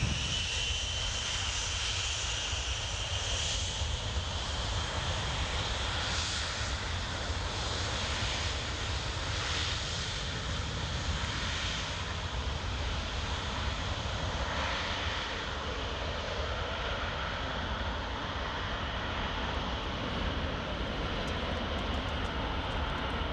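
Jet airliner engines running: a steady rumble and rushing noise with a thin high whine held throughout.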